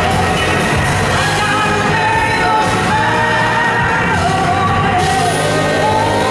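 Live blues-rock band playing, a woman singing lead in long, wavering held notes over electric guitars and drums.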